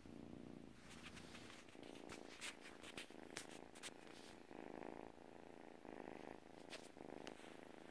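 Kitten purring faintly and steadily, the purr coming in waves about a second long, with a few faint clicks.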